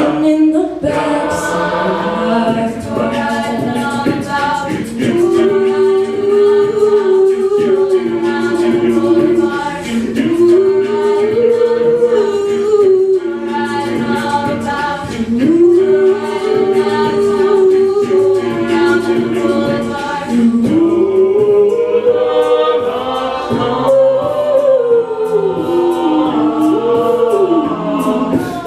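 A cappella group singing: a female lead voice sings long, rising and falling phrases over sustained backing harmonies, with beatboxed vocal percussion keeping a steady beat underneath.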